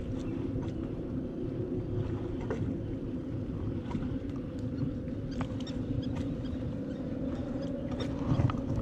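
Steady low engine drone, with scattered light clicks and taps over it.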